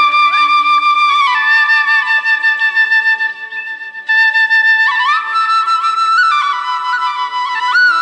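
Background music: a flute playing a slow melody of long held notes, sliding up into each new note, with a few quick ornamented turns near the end.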